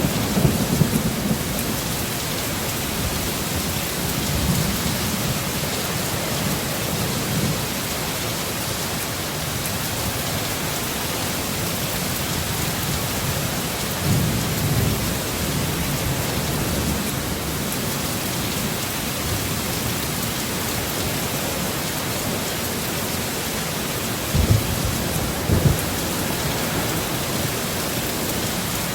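Heavy rain falling steadily, with low thunder rumbling about halfway through and two short low thumps near the end.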